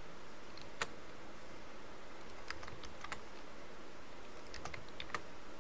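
Computer keyboard keys clicking: a handful of scattered single keystrokes, not continuous typing, over a faint steady hiss.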